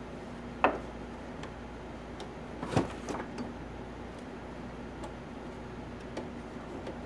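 Metal wiper linkage and motor assembly knocking against the car's cowl and body as it is worked out by hand: a sharp knock about half a second in, a small cluster of knocks around three seconds, and a lighter one near the end, over a faint steady hum.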